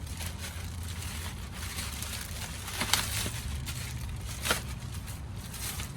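Handling of plastic window rain guards and their packaging: light rustling with two sharp clicks, about three and four and a half seconds in, over a steady low hum.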